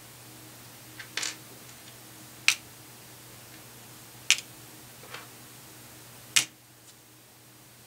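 Small bullet fragments being set down one at a time on the metal platform of a digital pocket scale: about five sharp clicks, a second or two apart.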